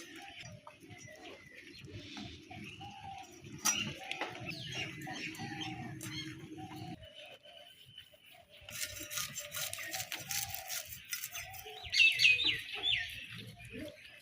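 Birds chirping and calling, with short repeated notes and quick falling chirps; the loudest run of chirps comes near the end.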